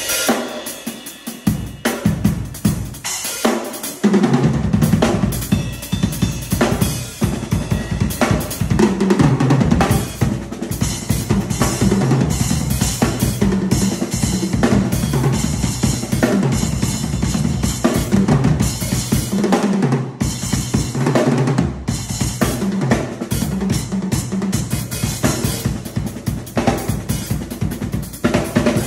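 Acoustic drum kit with Zildjian cymbals played with sticks: snare, hi-hat and cymbal strokes. The bass drum comes in heavily about four seconds in, drops out briefly around twenty seconds in, then returns.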